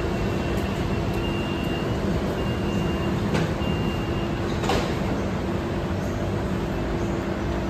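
BTS Skytrain EMU-B3 electric train standing at the platform with a steady electrical hum. Over the first four seconds a high door-closing warning beeps in three stretches, with a knock as the doors shut just before the five-second mark.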